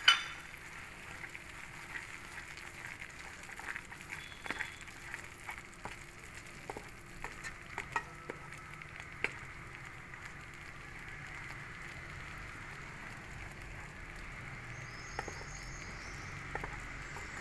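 Tomato gravy and spices sizzling in ghee in a stainless steel pan while a wooden spatula stirs, with scattered clicks and scrapes of the spatula against the pan. A sharp knock right at the start.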